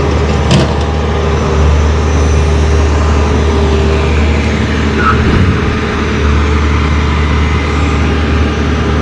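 Engine running steadily with a loud, constant low hum.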